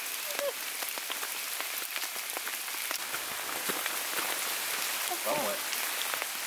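Steady rain falling, with a dense patter of small drop ticks. A brief faint voice is heard about five seconds in.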